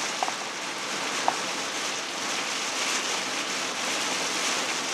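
Rain and tyres on a wet road heard from inside a moving camper van's cab: a steady hiss, with a couple of short ticks in the first second and a half.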